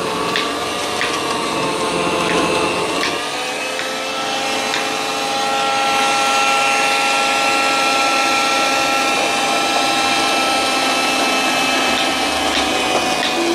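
Electric citrus press and vertical slow juicer running together as oranges are pressed and carrots are fed in: a steady motor whine that shifts in pitch about three seconds in, with sharp crackling clicks in the first few seconds and again near the end.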